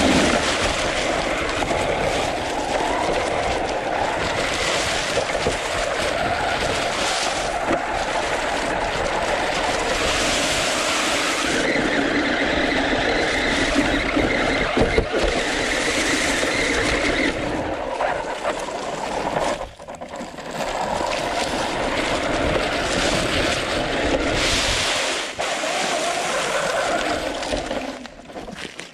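Traxxas Rustler 4x4 electric RC truck driving over a dirt and leaf-covered trail, heard from a camera mounted on its roof: steady motor and drivetrain noise with wind rushing over the microphone and knocks from bumps. A whine holds steady for a few seconds in the middle, and the noise dips briefly about two-thirds in.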